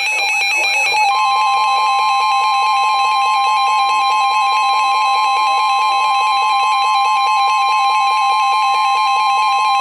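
Emergency Alert System two-tone attention signal played over weather radio. It is a loud, steady electronic alarm: one tone sounds first and a second, slightly higher tone joins about a second in, held together. It marks a new warning about to be read.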